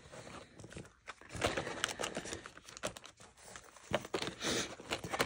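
Hands shifting and packing small gift items and plastic-wrapped packages into a cardboard shoebox: irregular rustling and crinkling with light knocks and clicks.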